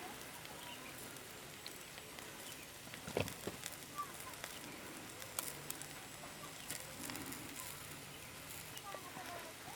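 Cooking fire crackling, with scattered sharp pops over a steady hiss; birds chirp faintly in the background.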